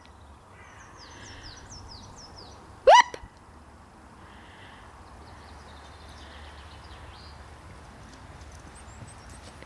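A single short, sharp call that rises in pitch, about three seconds in, from an animal. Faint high bird chirps in the background.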